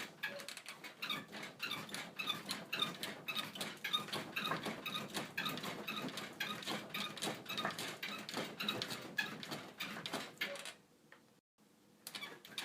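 Bed creaking over and over: a run of squeaks and creaks that stops about 11 seconds in and starts again just before the end.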